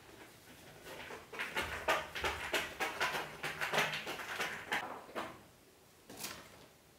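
Kittens' claws and paws scrabbling and scratching during rough play: a quick run of scratchy scrapes from about a second in to about five seconds, then one more near the end.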